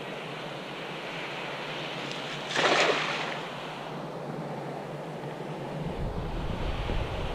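Wind rushing through tall reeds and over the microphone, a steady hiss, with a brief louder rush about two and a half seconds in. Low wind buffeting on the microphone comes in for the last second and a half.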